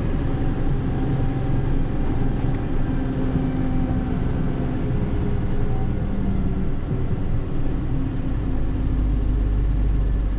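Heavy truck's diesel engine running steadily in a low gear, heard from inside the cab, holding the truck back on a steep downhill. A deeper low rumble comes in about eight seconds in.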